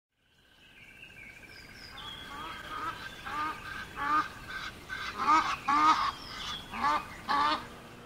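Geese honking over and over, about two calls a second, with fainter chirps of smaller birds, fading in from silence at the start.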